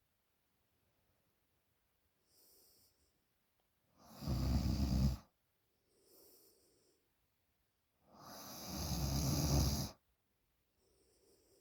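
A young woman snoring in her sleep: two loud snores, the second longer and swelling, with soft, quiet breaths between them.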